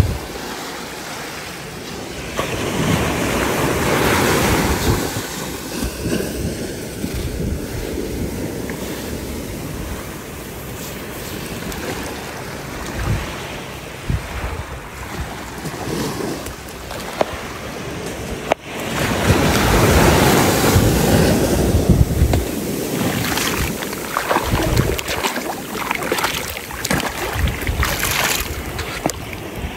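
Shallow surf washing in over wet sand, with wind noise on the microphone; the wash swells louder twice, a couple of seconds in and again about two-thirds through. Near the end come short wet crackles of hands scooping sand out of the foamy water.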